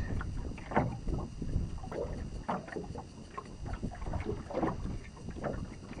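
Small waves lapping and slapping against the hull of an aluminum fishing boat in irregular splashes, over a steady low rumble of wind on the microphone.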